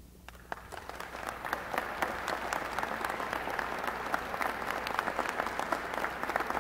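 Audience applauding, starting about half a second in, swelling quickly and then holding steady.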